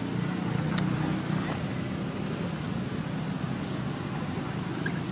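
Steady low rumble of outdoor background noise, with a couple of faint clicks.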